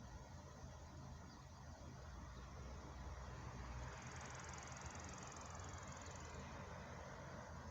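Faint outdoor ambience of insects buzzing, with a high, rapid, evenly pulsed trill from about four to six and a half seconds in, over a low steady rumble.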